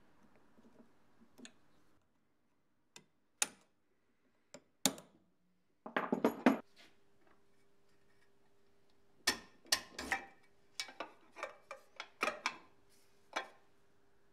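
Metal parts and hand tools clinking and knocking against each other: a few single sharp clanks, a quick rattling flurry about six seconds in, then a run of a dozen or so separate metallic knocks, with a faint steady hum underneath in the latter half.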